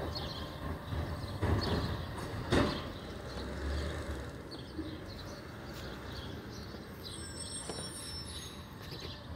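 Low, steady rumble of a heavy truck's engine out of sight, with a few sharp knocks in the first three seconds, the loudest about two and a half seconds in.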